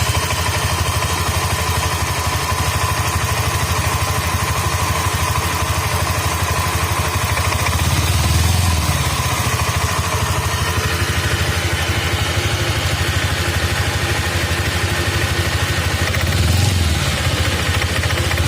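Engine idling steadily, with a faint steady whine above the low running note and two slight rises in level, around the middle and near the end.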